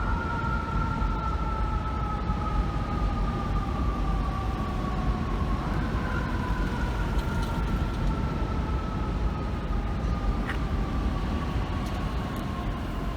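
Fire truck siren that spins up quickly, then slowly winds down in pitch, spins up again about six seconds in and winds down once more, over a heavy low rumble of engines and traffic.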